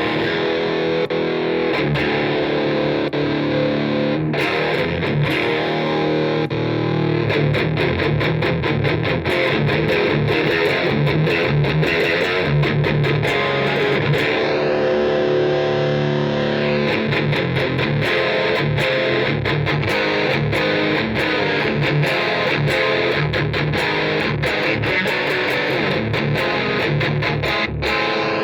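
Electric guitar played continuously with a distorted tone through a 1812 Custom Carabinier tube amplifier.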